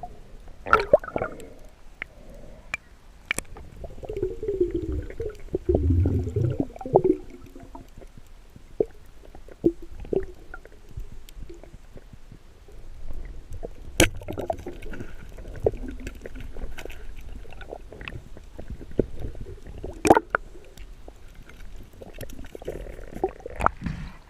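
Water gurgling and sloshing close to the microphone, with a handful of sharp clicks scattered through, the loudest about halfway and again past the two-thirds mark.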